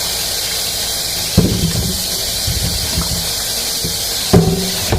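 Kitchen faucet running steadily as squash is rinsed under it, with two low knocks in the sink, about a second and a half in and near the end.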